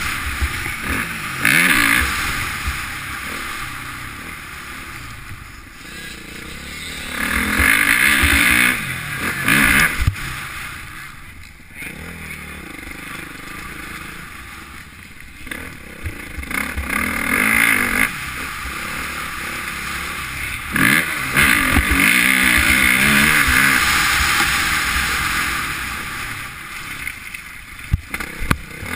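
Motocross bike engine revving hard and easing off in repeated surges as the throttle is opened and shut, heard from a helmet-mounted camera. The loudest pulls come around 7 to 10 seconds in and again from about 21 to 25 seconds, with quieter coasting between.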